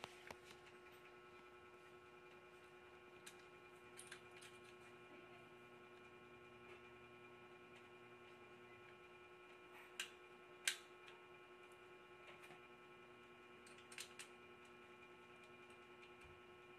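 Near silence with a steady hum, and a few faint clicks of small parts being handled: the gear and bushing on the end of a copier fuser roller, the sharpest click about ten and a half seconds in.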